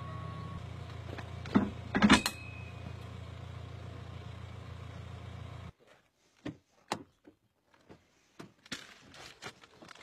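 Car engine running as a steady low hum, with two clunks about one and a half and two seconds in. The hum cuts off suddenly a little past halfway, leaving scattered clicks and knocks.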